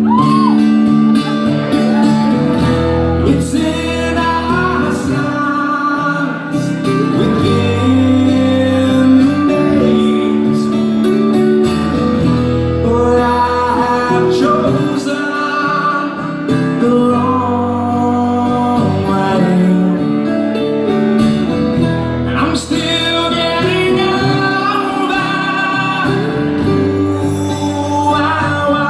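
Live performance of a song: singing over guitar, with sustained, wavering vocal lines.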